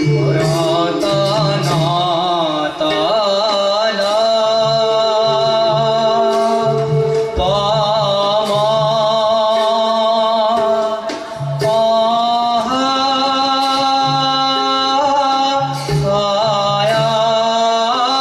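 Male voice singing a Borgeet in Raga Ahir in long, wavering ornamented lines, accompanied by khol drum strokes and a bamboo flute.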